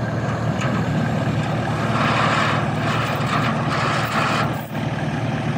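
Diesel farm tractor engines running steadily, growing louder for a couple of seconds from about two seconds in, then dipping briefly near the end.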